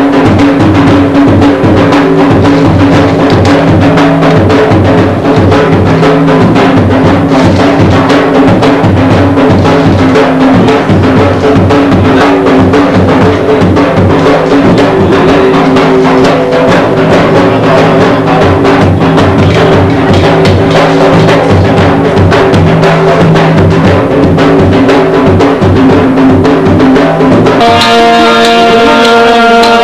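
Loud, rapid drumming over steady held tones. Near the end the drumming stops and a harmonium sounds a sustained chord.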